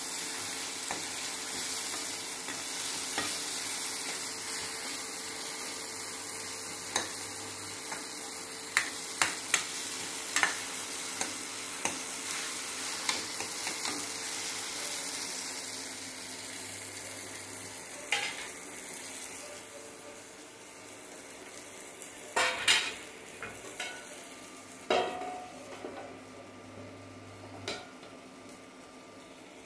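Tomato and pepper gravy sizzling in a kadai while a metal spoon stirs and scrapes against the pan, with scattered taps. The sizzle dies down about two-thirds of the way through, and a few louder clanks of cookware follow.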